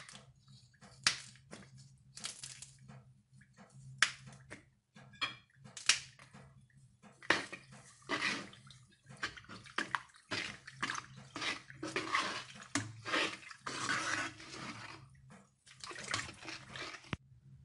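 Metal ladle stirring a thin, watery haleem mixture in a non-stick pan: short clicks and taps of the ladle against the pan at first, then steadier sloshing and scraping from about halfway through. A steady low hum runs underneath.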